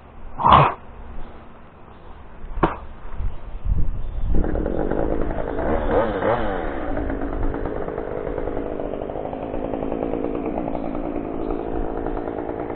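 A short loud burst about half a second in and a sharp click about two and a half seconds in. Then a two-stroke chainsaw starts about four seconds in and runs, its pitch rising and falling briefly around six seconds before it settles into steady running.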